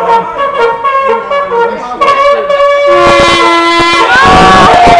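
Solo trumpet playing a tune of short notes, then a longer held note. About four seconds in, loud crowd noise, shouting and cheering, swells up under it.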